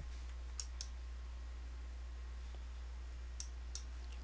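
Computer mouse button clicking: two pairs of sharp clicks, about three seconds apart, as points of a line are placed in charting software, over a steady low hum.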